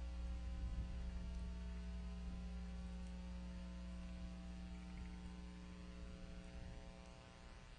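Steady electrical mains hum, a stack of unchanging tones. Its deepest part fades out about six seconds in.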